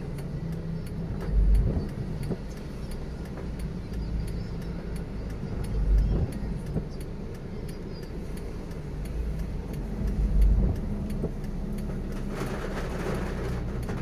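Car road noise while driving on a wet street: a steady engine and tyre drone with heavy low thumps about every four to five seconds. A louder tyre hiss comes near the end.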